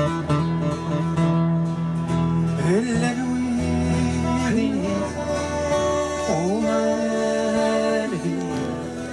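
Two acoustic guitars playing a live Amazigh song, with a man's singing voice coming in about three seconds in.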